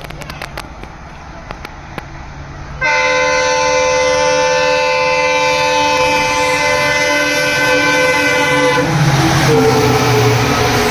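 Indian Railways express train's locomotive horn sounds one long blast of about six seconds, starting abruptly about three seconds in as the train approaches at speed. Near the end the horn stops and the rush of the locomotive and coaches passing close by takes over.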